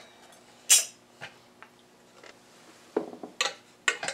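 A few short clicks and clatters as a whirligig propeller is handled on its metal shaft: one sharp click under a second in, a fainter one soon after, and a quick cluster near the end.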